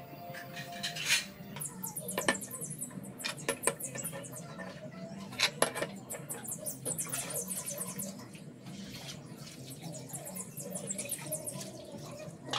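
Steel sprockets and plates clinking and scraping as they are set down and shifted against a steel plate by hand, a few sharp clinks standing out, the loudest about halfway. High, rapid chirping runs through the background.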